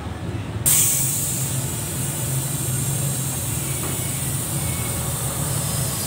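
Compressed air hissing through an air chuck into the valve stem of an 11R22.5 semi-truck tubeless tire as it is inflated; the loud steady hiss starts suddenly just under a second in, over a steady low hum.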